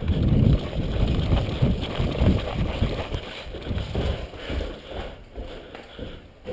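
Footsteps and jostling gear picked up by a body-worn action camera as a player runs: irregular low thumps, a few a second, that slowly fade.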